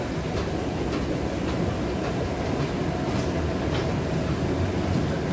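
Steady low rumble and noise of a moving vehicle, with faint scattered clicks.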